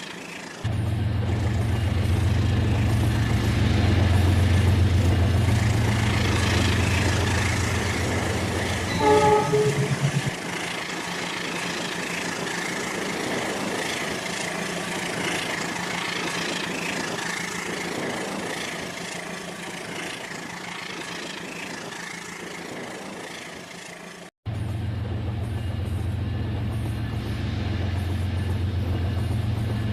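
RailKing model train running with a steady low rumble, giving one short horn toot about nine seconds in. The rumble cuts out abruptly about 24 seconds in and then resumes.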